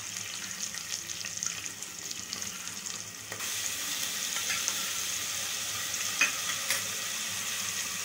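Onions, green chillies and ginger-garlic paste sizzling in hot oil and ghee in an aluminium pressure cooker. The ladle clicks against the pot a few times. The sizzle gets louder about three and a half seconds in.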